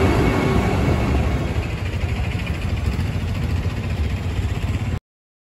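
Street traffic with vehicle engines running, a dense steady noise that cuts off abruptly about five seconds in.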